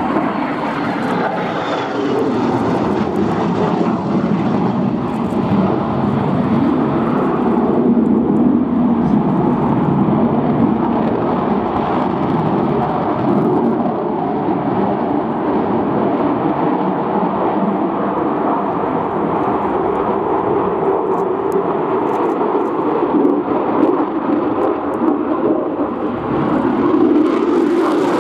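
Lockheed F-35B Lightning II's Pratt & Whitney F135 turbofan jet engine, loud and sustained during a flying display. The noise swells slightly about a third of the way in and again near the end.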